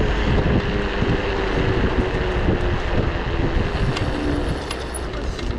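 Off-road vehicle engine running under way, with wind buffeting the microphone.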